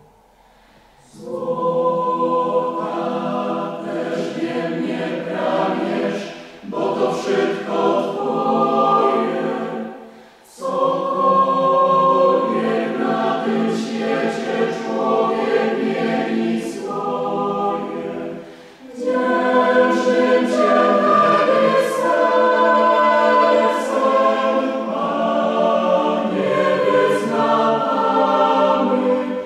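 Mixed choir singing unaccompanied in sustained chords, with men's and women's voices together. It comes in about a second in and sings in phrases with short breaks between them, near 6, 10 and 19 seconds in.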